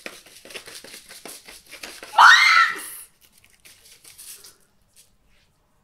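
Quick rustling and tapping as cocoa powder is shaken from a paper packet through a small wire sieve, broken about two seconds in by a girl's brief high shriek of laughter.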